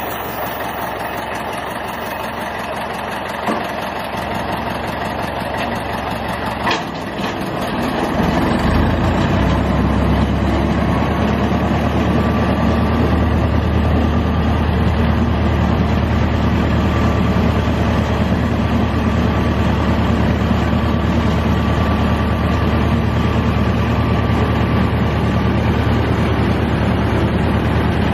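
Engine of a large mobile boat crane running. About eight seconds in its revs rise to a louder, heavier note and hold steady as it lowers a boat hanging in slings. Two sharp knocks sound in the first seven seconds.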